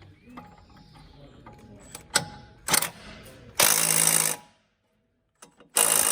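Cordless impact wrench with a 19 mm socket tightening the castor wheel's axle bolt, in two loud bursts of rapid hammering, the second starting about two seconds after the first ends. Light clicks and a couple of sharp knocks from fitting the socket come before them.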